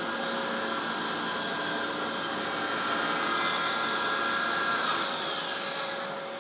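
Festool CSC SYS 50 cordless table saw running at full speed as its blade crosscuts a plywood board at a 45-degree miter. Its whine winds down in pitch about five seconds in.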